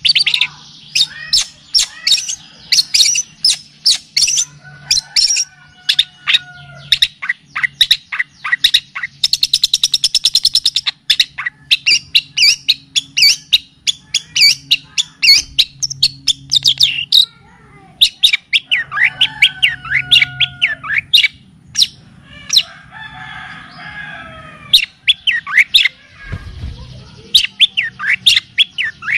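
Songbird song from a bird-training (masteran) recording: rapid sharp chirps and clicking notes in quick series, with a fast buzzy trill about ten seconds in and a few lower whistled notes. A steady low hum runs underneath, and there is a dull thump near the end.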